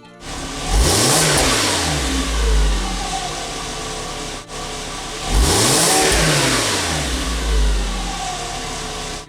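A VW Jetta 2.5's inline five-cylinder engine and exhaust revving up and easing back down, twice, with a short break between the two pulls.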